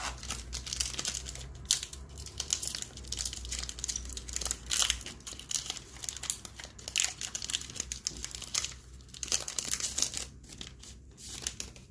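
Foil wrapper of a Pokémon card booster pack crinkling and tearing as it is opened by hand, a rapid, irregular crackle.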